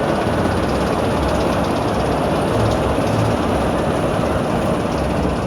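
Sierra Sidewinder spinning roller coaster on the move: a steady loud rumble of wheels running on steel track, mixed with rushing wind noise.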